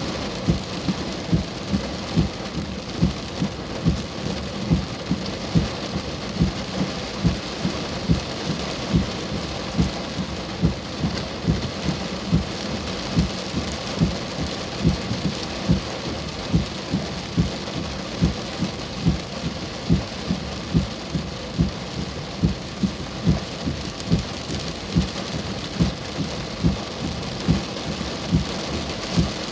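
Steady rain falling, with frequent dull thumps of heavy drops striking a surface close to the microphone, roughly two a second.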